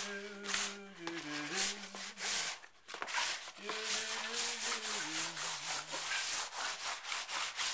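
Rapid scrubbing strokes of paint being worked over a painting's surface, several a second, while a man hums a tune.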